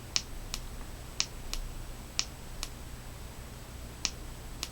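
The AstroLux FT03S flashlight's button clicking, pressed and released four times: eight sharp clicks in pairs about half a second apart, as the brightness levels are cycled.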